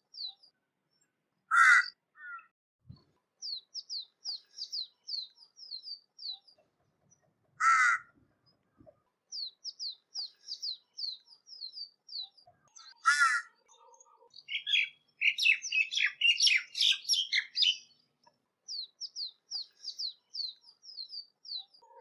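Crow cawing: three loud single caws about six seconds apart. Between them a smaller bird repeats runs of quick, high, falling chirps, with a busy stretch of twittering in the middle.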